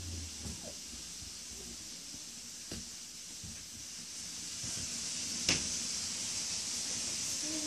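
Steady high hiss of room noise that grows louder about four to five seconds in, with a faint click near the middle and one sharp click about five and a half seconds in.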